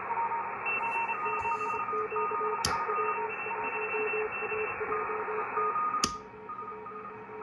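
Icom IC-7300 HF transceiver's speaker giving 40-metre band hiss with faint keyed on-and-off tones from weak signals. Two sharp switch clicks sound in the room. After the second click, near the end, the hiss drops noticeably, as the phasing noise canceller cancels the local noise.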